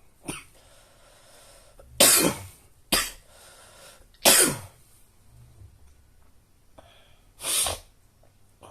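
A person sick with Omicron COVID-19 coughing hard in several separate bursts, about five in all, a small one near the start and the loudest a couple of seconds in and again about four seconds in.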